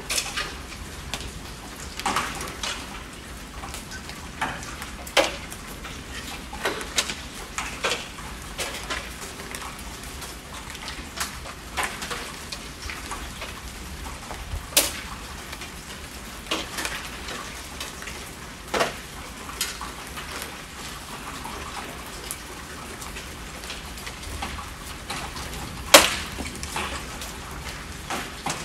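Rain falling steadily, with individual drops tapping sharply at irregular intervals over the patter; the loudest strike comes near the end.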